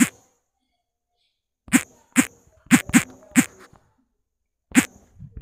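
Keystrokes on a smartphone's on-screen keyboard: a run of about six short, sharp clicks at an uneven typing pace, starting about two seconds in, one for each letter typed.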